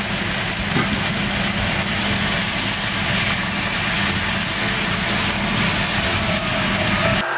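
Diced pork, onion and tomato sautéing in a frying pan, a steady sizzle with a low hum beneath it. The sound cuts off abruptly just before the end.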